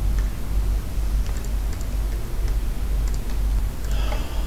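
A few scattered, light computer-keyboard keystrokes, faint over a steady low hum.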